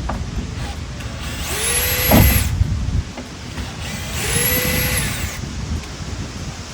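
Power drill driving screws into wood: two short runs, each spinning up to a steady whine and winding down, with a knock during the first.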